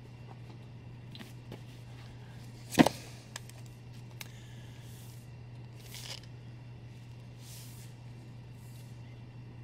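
Handling sounds as a hardcover book is lifted out of a cardboard shipping box: one sharp knock about three seconds in, a few light clicks, and brief rustles of paper or plastic, over a steady low hum.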